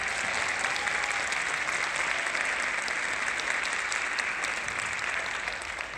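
Theatre audience applauding steadily after a dance number, the clapping starting to die away near the end.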